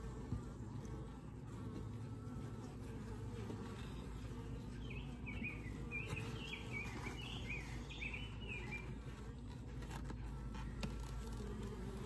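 Honeybees humming steadily around an open Layens horizontal hive, with a sharp tap or two as a metal hive tool pries the wooden frames apart. A short run of high chirping notes comes midway.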